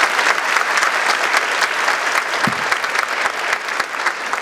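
Audience applause: dense, steady clapping from a full hall, easing slightly toward the end.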